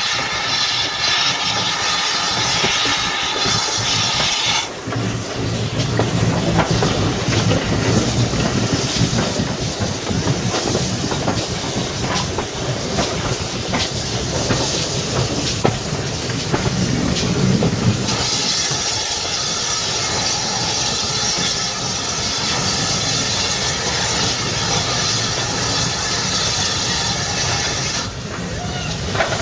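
Steam train hauled by the GWR 0-6-0 locomotive 3205 running slowly into a station: steam hissing, with wheels clicking over rail joints and points. The sound shifts abruptly about five and about eighteen seconds in.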